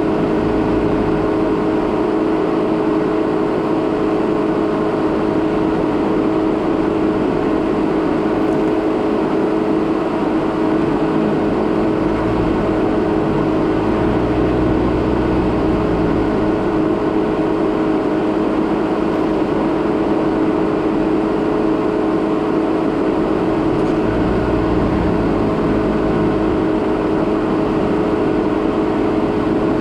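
A 2017 Jeep Renegade Trailhawk's four-cylinder engine droning steadily under the rumble of its tyres on a rough dirt and gravel road, at an even level throughout.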